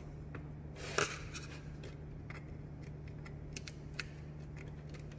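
Light metallic clicks and taps as the small rollers and vanes of a Garrett GT17 turbo's variable-geometry vane ring are handled and fitted, with one clearer click about a second in. A low steady hum runs underneath.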